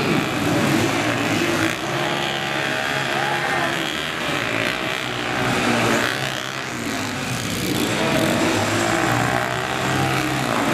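Several motorcycle engines running at once, revving so that their pitch rises and falls unevenly.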